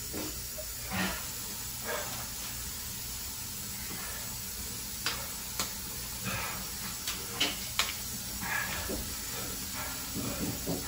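A man breathing hard and hissing air through his teeth against the burn of a super-hot chili pepper, over a steady background hiss. Several sharp clicks and taps come in the middle as he handles and drinks from a can.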